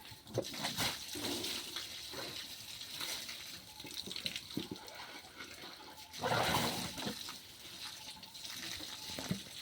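Water splashing as an elephant bathes herself, in irregular splashes, with a louder rush of water about six seconds in.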